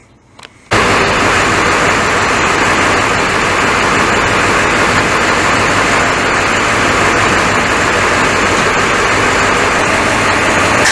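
Steady, even noise of a vehicle running or under way, with no clear engine note, starting abruptly about a second in.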